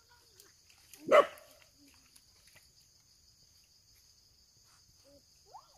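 A dog barks once, a single short bark about a second in.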